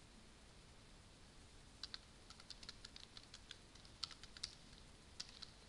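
Faint typing on a computer keyboard: a run of irregular keystroke clicks, several a second, starting about two seconds in.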